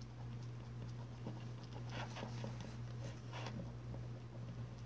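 Faint soft scraping and squishing of a shampoo-and-salt slime being stirred by hand in a bowl, with a few slightly louder strokes about two and three and a half seconds in. A steady low hum from an electric fan runs underneath.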